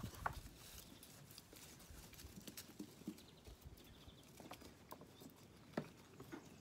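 Faint, scattered taps and rustles of lambs' hooves stepping about on straw and boards, with a sharper click just after the start and another near the end.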